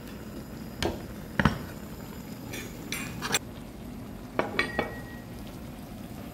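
Cutlery and dishes clinking and knocking: about eight separate light strikes, the loudest about one and a half seconds in, one ringing briefly a little past the middle.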